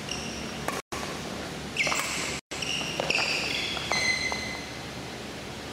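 Court shoes squeaking and stepping on a badminton court floor during footwork: a string of short, high squeaks with light footfalls, thickest in the middle.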